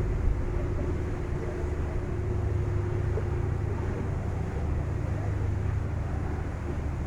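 Steady low rumble of a ferry's engines heard from on board, with a hiss of wind and water over it.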